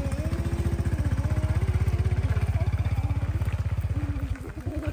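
A small engine running with a rapid, even putter that swells through the middle and drops away about four seconds in.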